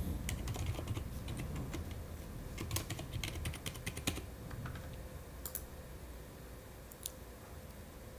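Typing on a computer keyboard: a quick run of keystrokes over the first four seconds, then a couple of separate clicks later on.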